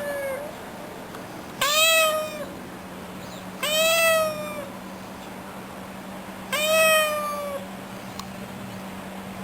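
A cat meowing: the end of one meow at the start, then three more meows a few seconds apart. Each lasts just under a second and rises, then falls, in pitch.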